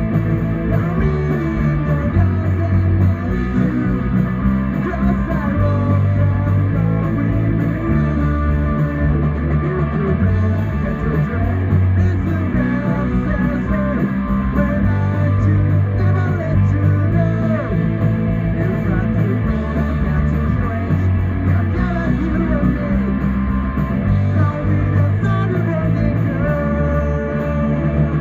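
Rock band playing live: electric guitars, bass and a drum kit with a steady beat, and a voice singing over them.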